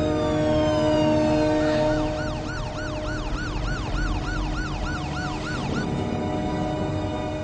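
Emergency vehicle siren: a falling wail in the first second or so, then a fast yelp of about three rising-and-falling sweeps a second that stops about six seconds in, over a steady low music drone.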